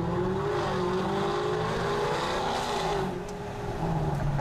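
A car engine running, its pitch rising and falling as the revs change, then easing off about three seconds in before settling to a steady low drone.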